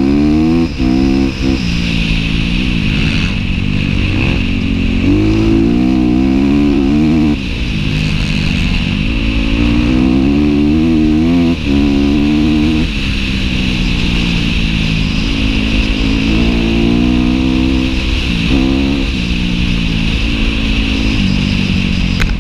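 Dirt bike engine under way, pitch climbing and falling over and over as the rider works the throttle and shifts gears. The engine note drops briefly at each shift.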